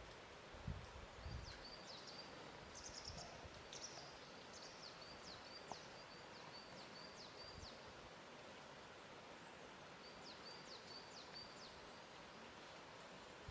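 Faint lakeshore ambience: a steady soft hiss, with a few low soft laps of water in the first second or two, and a small bird chirping repeatedly in short, high, quick calls.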